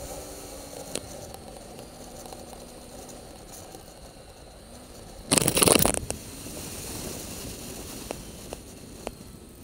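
Yamaha Vino 125 scooter running at road speed, its engine faint under a steady rush of wind and road noise on the GoPro microphone, with light clicks. About five seconds in, a loud rushing burst hits the microphone for under a second.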